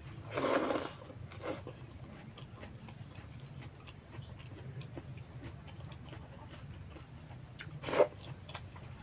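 A man eating rice by hand: quiet chewing and mouth sounds with faint small ticks over a steady low hum, broken by a short loud noisy sound about half a second in, a smaller one soon after, and a sharp brief one near the end.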